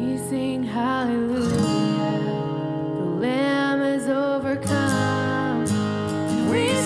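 Worship song: acoustic guitar strumming sustained chords under a sung melody.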